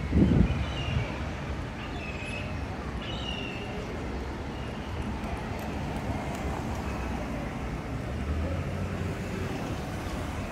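Town-street traffic: a steady low rumble of passing vehicles, swelling a little about eight seconds in. There is a short low thump right at the start and a few short bird calls in the first few seconds.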